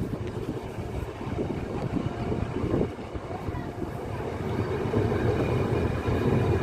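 Steady rumble and running noise of a passenger train heard from on board, growing louder over the last couple of seconds.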